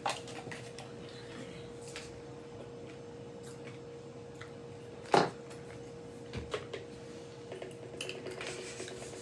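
Quiet eating at a table with dishes and cutlery: scattered soft clicks and taps, and one sharp knock about five seconds in, over a steady low hum.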